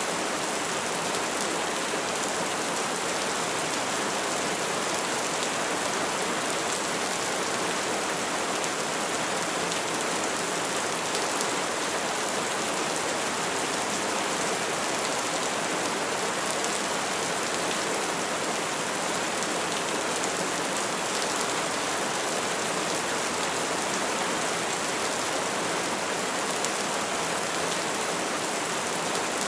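Steady rain falling, an even hiss of many drops without any thunder.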